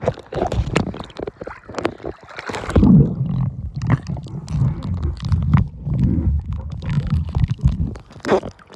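Pool water sloshing and gurgling around a waterproof camera as it dips below the surface. About three seconds in the sound turns to a muffled low rumble with scattered clicks, as heard underwater.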